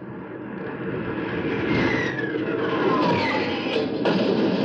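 Radio-drama sound effect of fighter aircraft engines growing steadily louder as the planes go into an attack run, with a falling whine about two seconds in.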